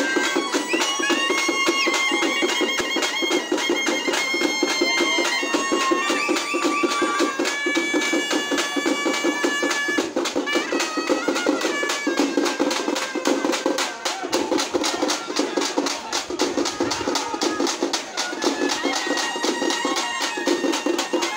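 Live folk band music: a shrill reed wind instrument plays a melody of long held notes over fast, steady drumming.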